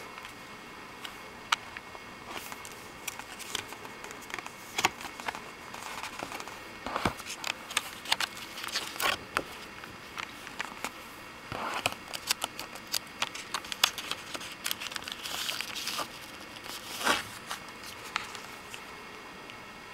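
Packaging of an album crinkling and crackling as it is handled and unwrapped: irregular rustles and sharp clicks, busiest in the middle.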